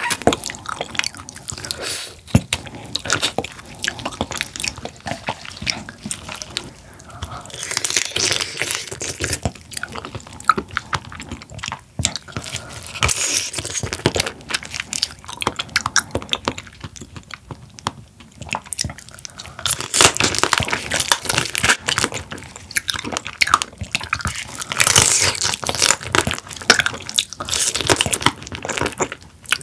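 Close-miked eating of spicy marinated raw crab (yangnyeom gejang): wet chewing and biting into the shell pieces, with crackling crunches in several louder stretches.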